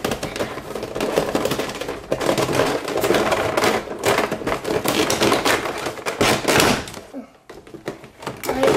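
Toy-figure packaging being opened by hand: a busy run of cardboard and plastic rustling with many small clicks and taps, which drops away briefly near the end.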